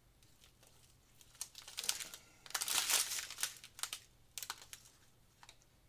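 Small plastic bags of diamond-painting drills crinkling as they are handled: a run of rustles that starts about a second and a half in, is loudest around the middle, and ends with a few short crackles.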